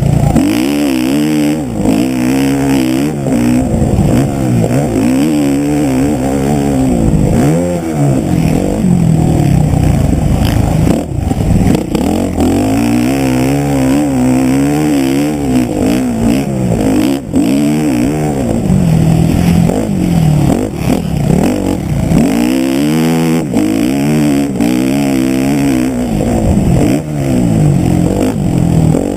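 Motocross bike engine revving hard and falling off again and again as the rider accelerates, shifts and backs off around a dirt track, with wind rushing over the helmet-mounted microphone.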